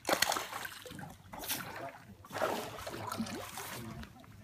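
Water splashing and sloshing below a pier, in irregular surges.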